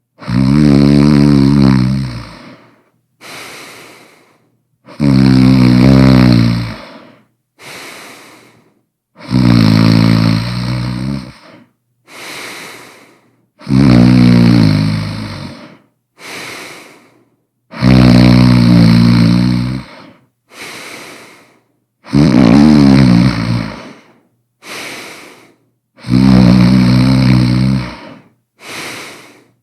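Loud snoring: a long, pitched snore of about two seconds on each breath in, repeating about every four seconds, each followed by a short, quieter breath out.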